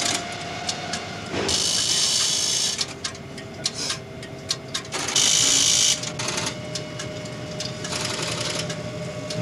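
Small machine running in three short bursts, with scattered clicks and a faint steady hum.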